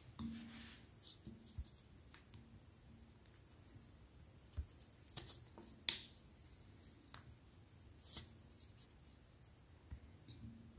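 Fingers scraping and picking crumbly ground chocolate out of a meat grinder's barrel: faint scratching and rustling with scattered small clicks, the sharpest about six seconds in.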